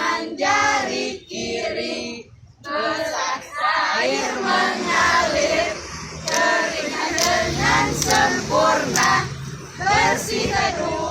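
Several voices singing a hand-washing song over backing music, with a sharp beat about once a second from about six seconds in.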